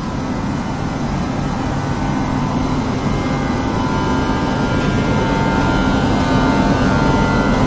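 WAP7 electric locomotive standing ready to depart, its cooling blowers and electrics giving a steady hum with several steady tones over a low rumble, slowly getting louder.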